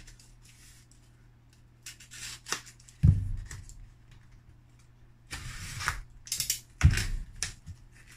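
Small cardboard box being opened by hand: rasping scrapes and rustles of the cardboard, with two sharp knocks about three and seven seconds in.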